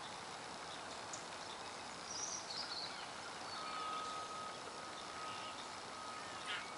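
Outdoor pond ambience: a steady background hiss, with a short bird call about two seconds in and a thin, steady high tone that starts a little past halfway.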